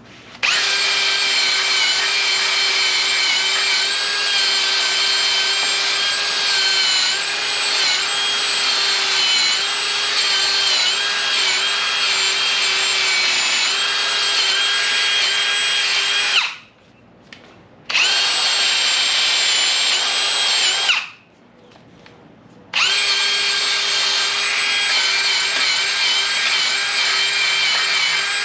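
Drill spinning a wire cup brush against a 6.0 LS engine block, scrubbing off leftover dirt with a steady high whine. It stops twice briefly, a little past halfway and again a few seconds later, each time starting up again.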